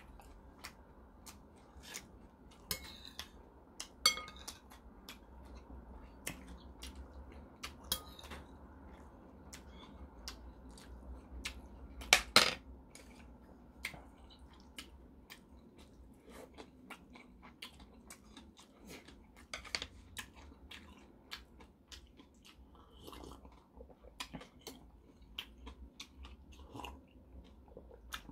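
A person chewing malatang, with scattered sharp clicks of metal chopsticks and tableware against ceramic bowls; the loudest knock comes about twelve seconds in.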